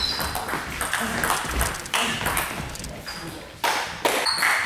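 Table tennis rally: the ball clicking off the bats and the table in quick succession, stopping about three seconds in.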